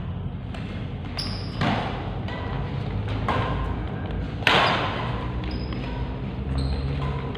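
Badminton rally: rackets strike the shuttlecock several times, with the loudest, sharpest hit about halfway through.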